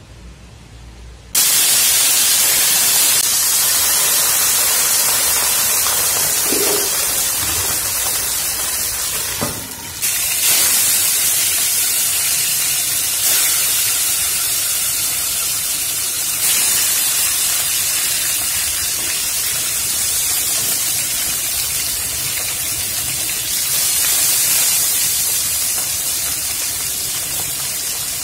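Steady, loud hissing of food frying in hot oil in a pan, with a brief break about ten seconds in.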